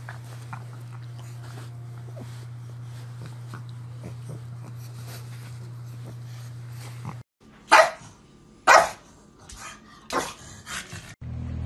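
Pug barking: two loud barks about a second apart, then several quieter ones. Before them, a steady low hum.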